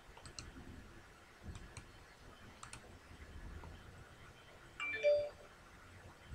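A few light computer-mouse clicks, in pairs, then about five seconds in a brief electronic chime of several steady tones, the loudest sound.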